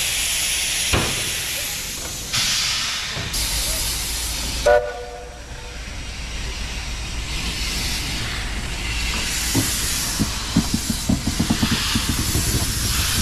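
B6-class steam tank locomotive No. 2109 hissing steam, then a short whistle blast a little under five seconds in. From about ten seconds in it pulls away, its exhaust chuffs coming faster and faster.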